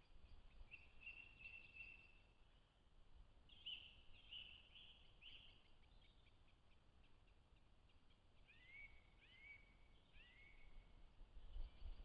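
Faint, high-pitched chirping calls in three short runs; in the last run, three calls each drop in pitch and then hold one note.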